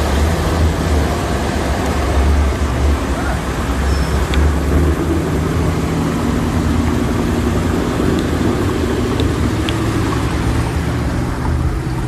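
A motor vehicle's engine running under a steady, loud rushing noise with a deep rumble.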